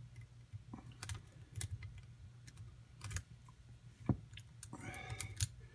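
Faint, irregular clicks of a steel hook pick and tension wrench working the pins inside a Den Brass padlock during single-pin picking.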